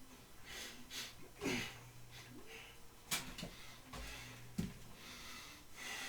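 A person breathing softly during exercise, with three sharp clicks or knocks spaced about a second and a half apart over a faint steady hum.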